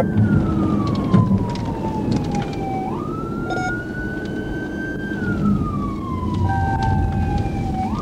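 Police car siren on a slow wail: the pitch falls steadily, jumps up about three seconds in and climbs, then falls again near the end. Underneath is the steady low rumble of the cruiser's engine and tyres at speed.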